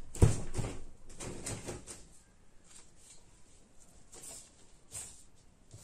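Cloth and paper rustling as a T-shirt is pulled off a heat press platen and handled, with one dull thump just after the start; the handling noises thin out to a few faint rustles later on.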